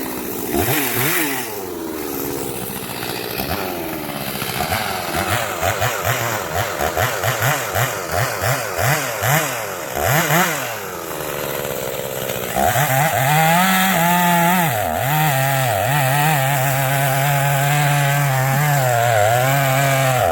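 Two-stroke chainsaw revved in many quick throttle blips for about twelve seconds, then held at full throttle, cutting into a pine, with the pitch dipping briefly now and then as the chain bogs in the wood.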